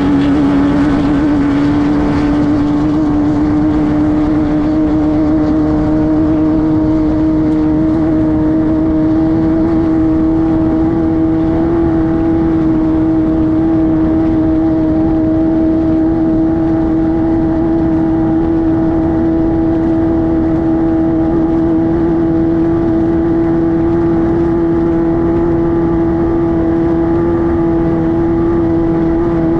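Class 5-1600 Baja Bug's air-cooled 1600 cc Volkswagen flat-four running at steady high revs, its pitch creeping slowly upward, over a constant rush of noise.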